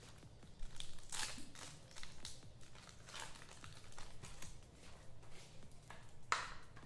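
Trading-card packs and cards being handled: a run of separate short crinkles and rustles, the sharpest one about six seconds in.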